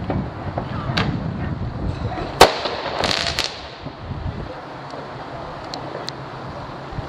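Fireworks going off: a sharp bang about two and a half seconds in, the loudest sound, followed by a short burst of crackling, with a few smaller pops before and after, over wind rumbling on the microphone.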